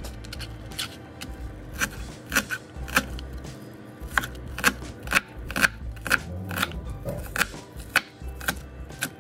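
Chef's knife chopping a red onion on a thin plastic cutting mat over a bamboo board: sharp, irregular knocks of the blade hitting the board, about two a second.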